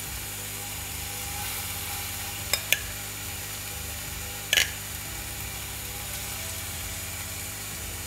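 Boneless chicken pieces sizzling in oil in a cast iron pan over a steady low hum. A few sharp clicks come through, the loudest about four and a half seconds in.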